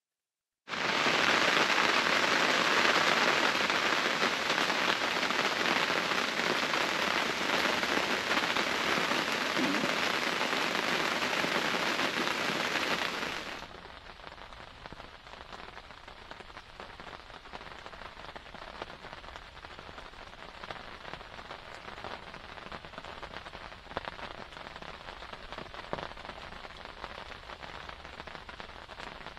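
Heavy rain pouring down in woodland, a loud, steady hiss that drops to a quieter patter about 14 seconds in, with scattered single drop taps.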